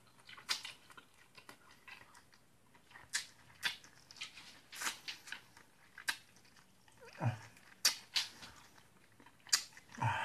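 Close-up eating sounds: chewing with irregular mouth smacks and clicks, and chopsticks picking at noodles. Two short pitched sounds fall in pitch, one about seven seconds in and one near the end.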